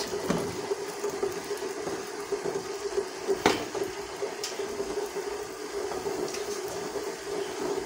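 Steady kitchen background hiss with a low hum beneath it while a paratha cooks on a hot tawa over a lit gas burner. A single sharp knock comes about three and a half seconds in.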